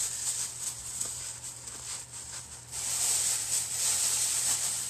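Thin plastic shopping bags crinkling and rustling as they are crumpled in the hands and stuffed in, louder from a little past halfway.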